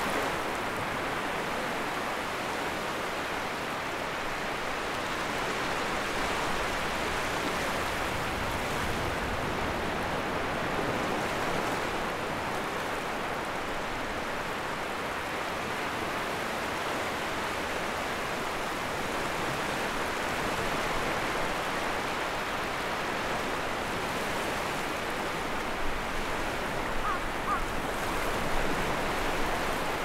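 Sea waves washing onto the shore: a steady rush of surf that swells and eases slowly, with a few sharper splashes near the end.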